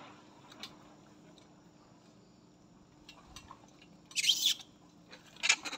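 Two short, high-pitched squeals from baby macaques at play, about four seconds in and again near the end, the first wavering in pitch.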